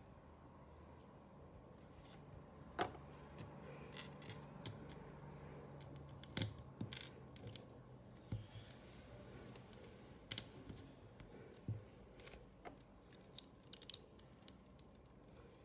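Plastic Lego bricks being handled and pressed together: irregular clicks and snaps, the sharpest about three seconds in and again about six seconds in.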